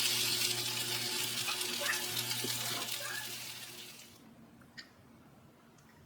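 Kitchen tap running into a sink, tapering and then shut off about four seconds in, followed by a single small click.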